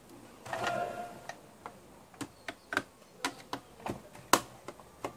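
Irregular sharp clicks and taps, about two a second, from hands and a tool working the hard plastic chassis of an opened robot vacuum. The loudest click comes a little past four seconds in, and a short scraping rustle comes first.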